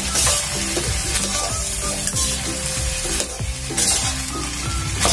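A spatula stirring and scraping rice and vegetables around a metal kadhai, with the oil frying and sizzling under them. The scraping strokes come roughly once a second.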